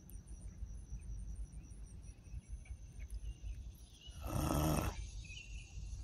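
Outdoor pond-side ambience: a steady high insect trill over a low rumble, with one short, wordless throaty sound from a person's voice about four seconds in.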